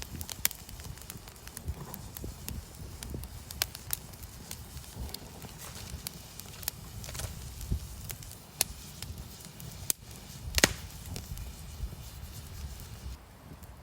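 Wood campfire crackling, with irregular sharp pops and snaps over a low steady rumble; one louder crack about ten and a half seconds in.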